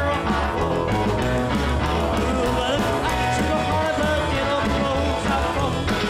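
Rock song with singing, guitar and a steady beat.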